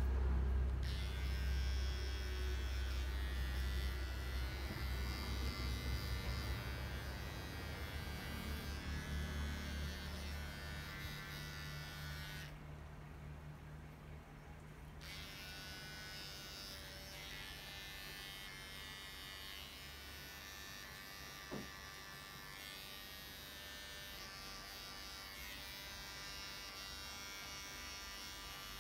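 Electric pet grooming clippers buzzing steadily, with a low rumble under them for the first third. The buzz stops for about two seconds around the middle, then runs on.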